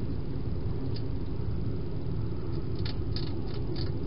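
A wild hedgehog feeding at a bowl inside a plastic feeding box, making a few small crunching clicks, most of them close together in the last second or so. A steady low rumble underlies it throughout.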